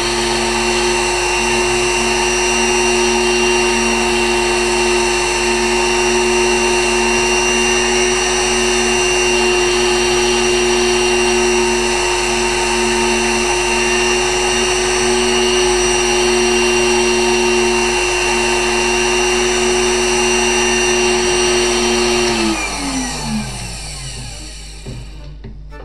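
Spindle motor of a pantograph engraving machine running with a steady whine while its cutter engraves lettering into wood. About 22 seconds in it is switched off and spins down, the whine falling in pitch until it stops.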